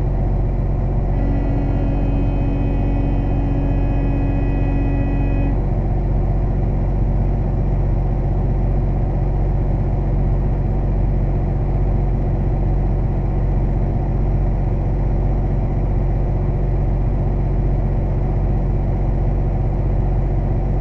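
Semi-truck diesel engine idling, a steady low rumble. A steady pitched tone starts about a second in and stops about four seconds later.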